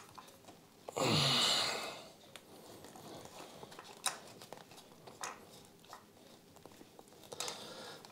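A loud breathy exhale about a second in, then faint scattered clicks and rustles of a wire in a braided sleeve being worked by hand through a motorcycle frame.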